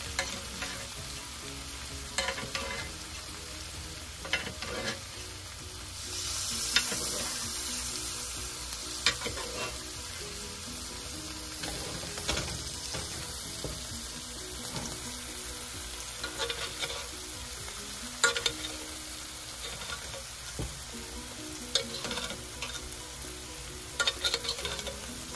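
T-bone steaks sizzling in melted butter in a cast-iron grill pan, with a metal spoon scraping and clicking against the pan as the butter is spooned over the meat. The sizzle swells louder for a couple of seconds about six seconds in.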